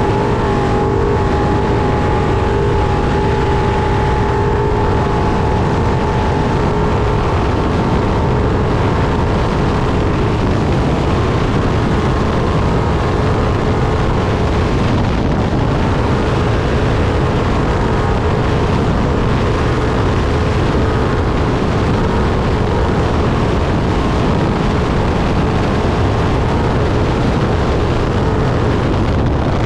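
Trophy truck driven at race pace off-road, heard from inside the cab: a loud, unbroken mix of engine and driving noise. A steady engine note holds for the first eight seconds or so, then sinks into the general din.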